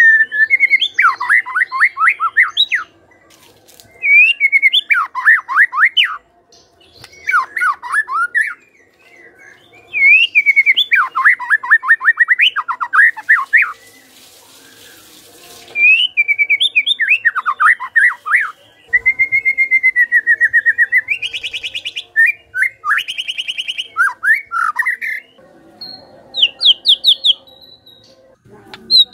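White-rumped shama singing in full voice: phrase after phrase of quick falling notes with short pauses between. In the second half it gives a long steady whistle, then harsh buzzy rattles and a fast trill.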